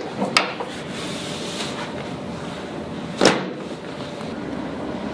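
A chiropractic adjustment on a patient lying on their back: a short click about half a second in, then one loud, sharp crack about three seconds in as the thrust is delivered, over steady background noise.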